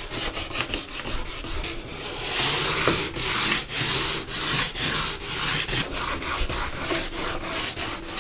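Sandpaper rubbed by hand over a wooden tabletop in quick, even back-and-forth strokes, with one longer stroke about two seconds in, as old varnish is sanded off the bare wood.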